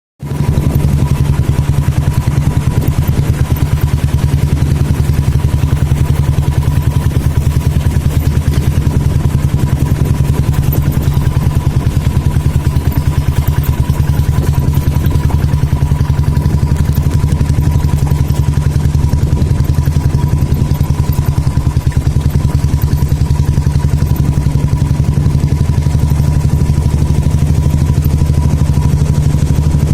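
Royal Enfield motorcycle engine running steadily, with a rapid, even beat and no change in revs.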